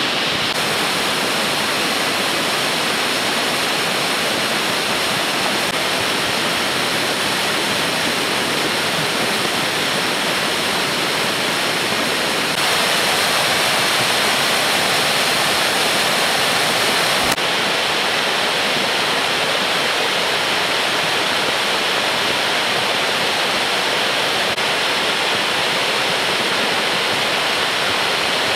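A volcanic lahar, a rain-triggered mudflow of water, mud and rocks, rushing steadily down a river channel. It grows a little louder for a few seconds around the middle.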